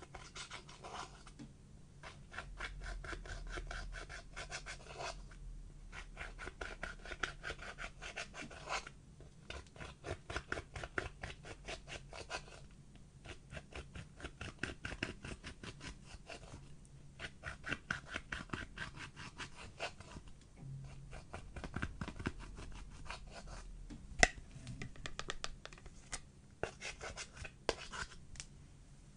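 Pressed eyeshadow scraped and crumbled out of its palette pans with a hand tool: rapid scratching strokes in runs of a few seconds, broken by short pauses, with one sharp click about three-quarters of the way through.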